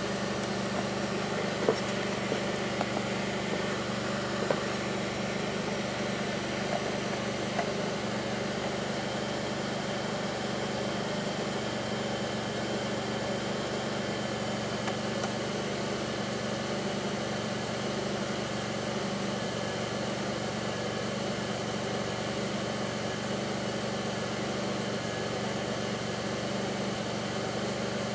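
2002 Pontiac Grand Prix's 3800 V6 idling, a steady hum with a few short sharp clicks in the first several seconds and one more about midway. The engine has a rough idle and bogs, which the owner is chasing along with faint intermittent thumps that pull the idle down.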